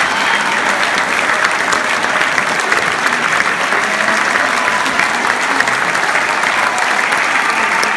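Audience applauding: dense, even clapping that holds steady without a break.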